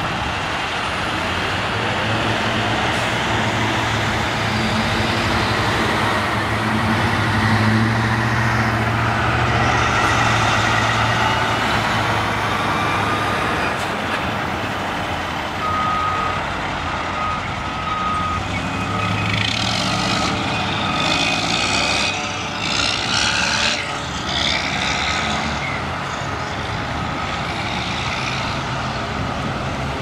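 Truck traffic at a stoplight: heavy diesel truck engines idling and running, swelling louder for several seconds in the first half. About halfway through, a reversing alarm beeps roughly once a second for several seconds, and hissing bursts of air-brake release follow soon after.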